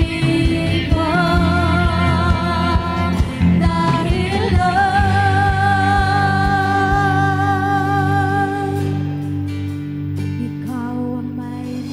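Worship song performed by a singer with a band of guitar and drums. The voice holds one long note with vibrato through the middle. The drums drop out a few seconds before the end, leaving the voice and sustained accompaniment.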